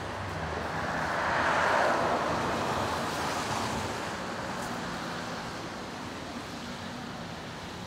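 Street traffic: a car passing, its tyre hiss swelling to a peak about two seconds in and then slowly fading, over a low steady hum.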